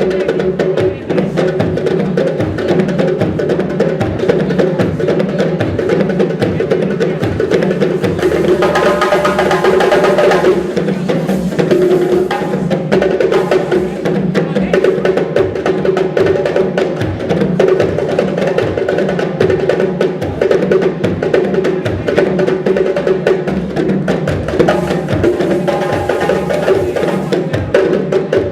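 Music with a steady drumbeat and percussion.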